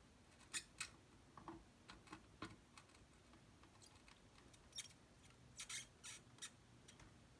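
Faint irregular clicks and crackles from desoldering a chip with a soldering iron and copper desoldering braid on a circuit board, bunched near the start and again after about five seconds.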